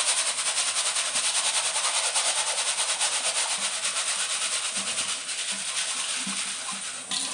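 Tap water running into a plastic strainer of mixed bird seed while the strainer is shaken. The seeds rattle and swish in a quick, even rhythm as they are rinsed of debris before sprouting. The sound eases off near the end.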